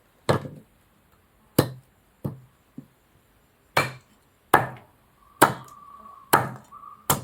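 Lesser galangal (sitharathai) rhizome being chopped into pieces with a blade: about nine sharp chops at uneven intervals.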